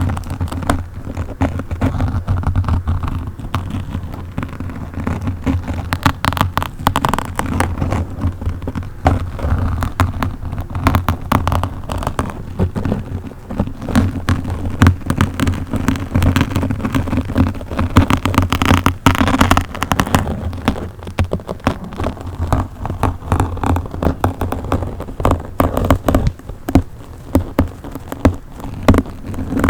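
A microphone being scratched directly for ASMR, making a dense, continuous run of crackles and pops over a low handling rumble. The scratching turns harsher for a moment about two-thirds of the way through.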